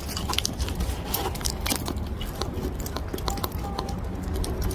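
Handling noise: scattered small clicks and rustles over a steady low hum.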